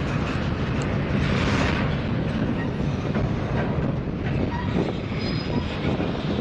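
Double-stack intermodal well cars rolling past on steel rails, a steady rumble of wheels on track.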